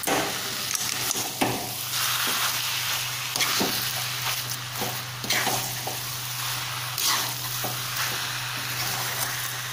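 A metal spatula stirring and scraping thick gajar ka halwa (grated carrots cooked down in milk) in a metal kadhai on low heat. There are repeated scraping strokes over a steady sizzling hiss and a low hum. The halwa is nearly dry and in its final stage, just about ready.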